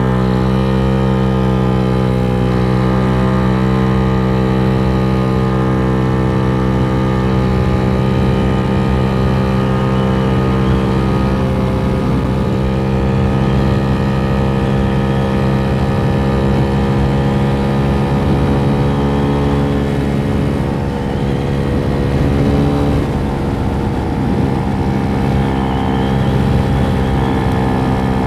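GY6 scooter engine with an 88cc big bore kit, running under throttle at steady, high revs while riding; its pitch climbs just before this and then holds nearly level, dipping slightly about 21 seconds in. The high revs are what the rider puts down to the Polini variator's 6.9 g rollers being too light.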